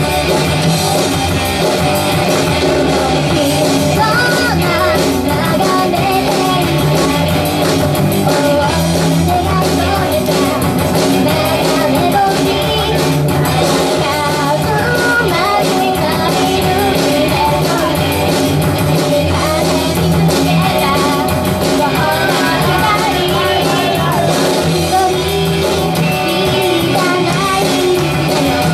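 Female voice singing into a microphone over loud, steady backing music, amplified through the venue's speakers.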